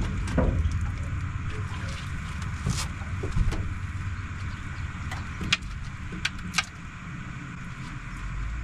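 Handling noises in a boat as a just-caught channel catfish is brought aboard: scattered sharp clicks and knocks, three of them in the second half, over a steady low rumble.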